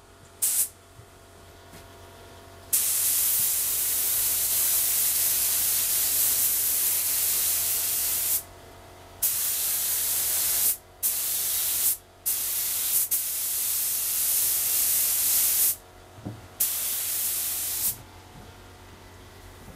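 Compressed-air spray gun hissing as it sprays finish onto bare wood, switched on and off with the trigger: one long spray of about six seconds starting near the three-second mark, then several shorter sprays with brief pauses between.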